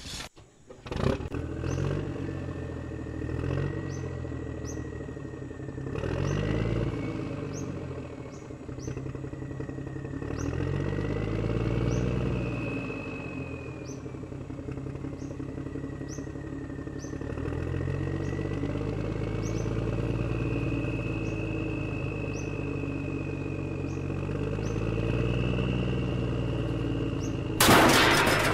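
An engine running, its sound swelling and easing every few seconds, with faint ticking about once a second. Near the end a loud, short rushing burst stands out above it.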